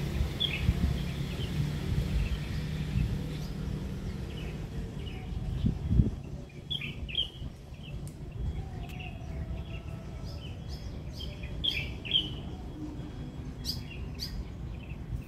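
Small birds chirping in short, scattered calls, over a low rumble of background noise in the first few seconds. A single thump about six seconds in is the loudest moment.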